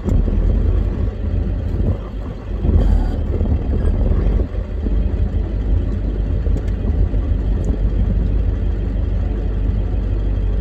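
Old pickup truck's engine running, heard from inside the cab as a steady low rumble, with brief dips in level about two seconds and four and a half seconds in.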